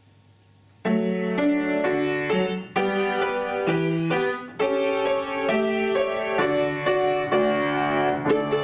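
Piano starts playing about a second in, a steady run of struck notes and chords: the opening of an accompaniment to a folk song. Near the end a plucked string instrument joins in.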